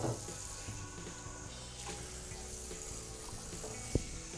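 Kitchen faucet running water into a soapy cast iron skillet in a stainless steel sink as it is rinsed, a steady splashing hiss, with a single sharp knock near the end.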